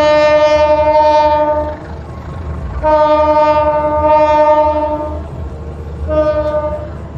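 Diesel locomotive horn sounding three blasts at one steady pitch: a long blast that ends about two seconds in, a second long blast from about three to five seconds, and a short one about six seconds in, over a low engine rumble.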